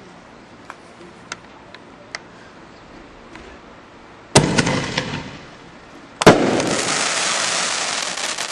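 Fireworks being test-fired. About four seconds in comes a sharp bang and a brief burst of crackling, then a second, louder bang. Dense, steady crackling follows for about two seconds and breaks into scattered pops near the end.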